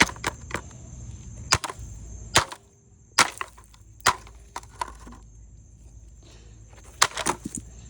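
Sharp, irregular knocks and clacks of hard parts being handled inside an opened-up Roomba robot vacuum, a few of them in quick clusters.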